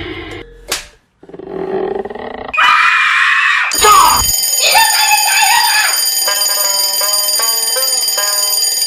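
Alarm clocks going off together: after a few clicks and a short burst of noise, a loud, steady high-pitched ringing starts about four seconds in. From about six seconds a stepped, beeping melody plays over it.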